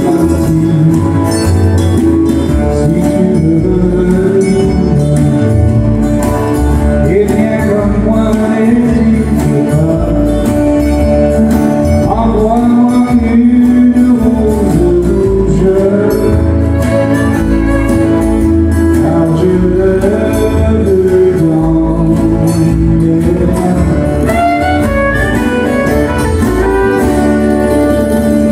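Live country music: acoustic guitars strummed while a man sings into a microphone.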